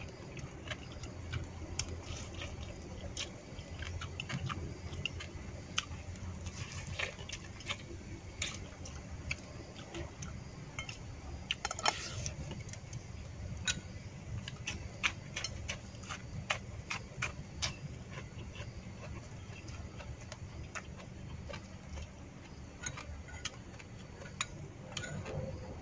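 Chopsticks clicking and scraping against a bowl while someone eats, a scatter of sharp light ticks. About halfway through there is a longer scrape as food is shoveled from the bowl held to the mouth.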